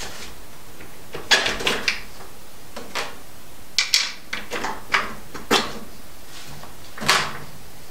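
Bolts being fitted through the holes of a metal anchor nest sitting on a diamond-plate deck, making a series of separate metal clinks and knocks, about eight in all, a second or so apart.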